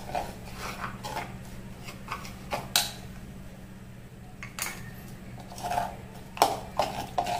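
A steel spoon scraping and clinking against a mixing bowl as flour is stirred into a batter with a little water, in irregular scrapes and taps. A steady low hum runs underneath.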